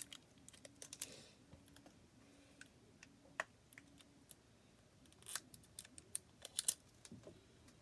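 Quiet, scattered clicks and crinkles of fingers picking open small surprise-toy packages, with a few sharper clicks at irregular gaps.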